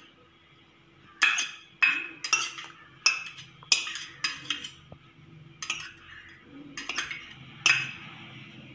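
A spoon clinking against a bowl in about a dozen irregular sharp strikes while grated coconut is added and mixed into soaked beaten rice (aval).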